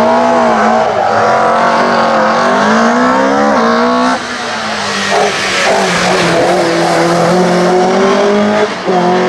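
Opel Kadett C 16V hillclimb race car at full throttle, its four-cylinder 16-valve engine revving hard. The pitch climbs, then drops sharply at an upshift about four seconds in, and climbs again with another shift near the end.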